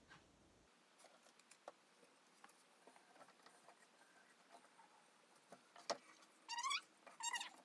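Quiet handling of warp threads on a wooden inkle loom: scattered soft clicks and taps of string and wooden pegs, then two short rising squeaks near the end.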